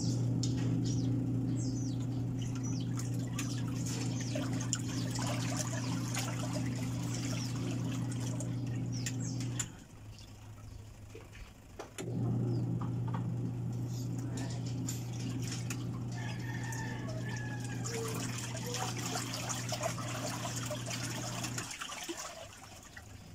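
A steady low hum that cuts off about ten seconds in, starts again two seconds later, and stops shortly before the end, with birds chirping over it.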